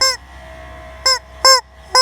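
Rubber squeaky chicken toy squeezed over and over, letting out four short, loud honking squawks, each bending up and then down in pitch, the last three coming about half a second apart.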